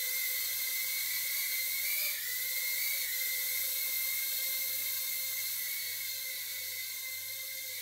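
Makerfire Armor Blue Bee 65 mm micro FPV quadcopter in flight: its tiny motors and propellers make a steady high-pitched whine. The pitch wavers slightly with throttle changes, briefly around two seconds in, and the whine grows a little fainter toward the end.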